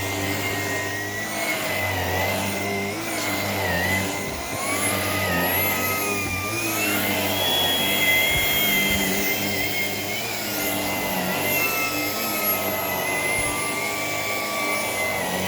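Shark PowerDetect IP1251 vacuum cleaner running steadily. Its motor whine rises in pitch about five seconds in, then slowly eases back down.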